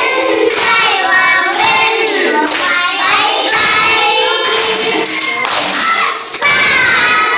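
A group of young children singing a song together in unison, clapping their hands along with it.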